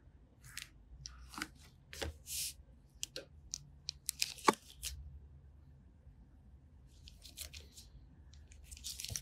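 Short scratchy rubbing strokes and light clicks of a cotton-wrapped wooden stick being worked around a toenail's edge to wipe off polish smudges, with latex gloves rustling against the foot. A sharp tap about four and a half seconds in is the loudest sound, and the strokes pause briefly before bunching up again near the end.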